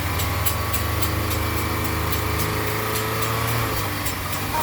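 Volkswagen Gol car engine running steadily, with a regular light knock or click about three times a second. The pranksters pass this off as a knocking engine ("batedeira no motor"), but it is a staged prank noise.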